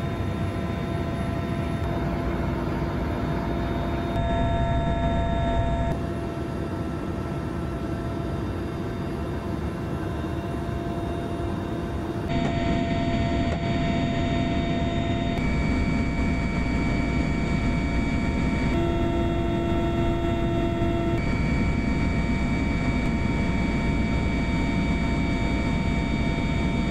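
Mi-8 helicopter's twin turboshaft engines and rotor heard from on board: a steady drone with high whine tones over a deep rumble. The tone and balance shift abruptly several times.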